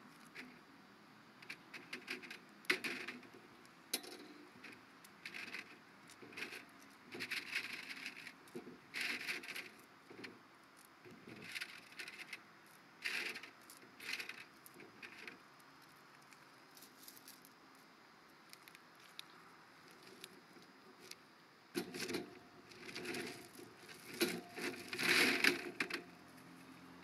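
Small quartz crystals clinking and clattering as they are handled, knocked together and set down on a wire drying rack, in scattered short clicks with a denser, louder run of clattering near the end.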